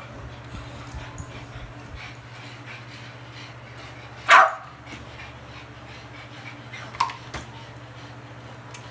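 Boston terrier puppy barking: one loud, short bark about four seconds in, and a shorter, quieter one about three seconds later.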